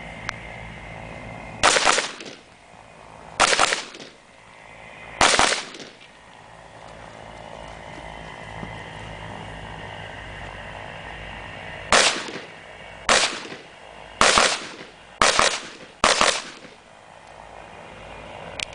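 Rifle shots: three shots about two seconds apart, a pause of several seconds, then a quicker string of five shots about a second apart.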